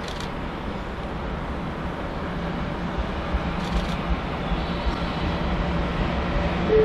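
Freight train running through with a steady low rumble that grows slowly louder. A short rising run of chime notes starts right at the end.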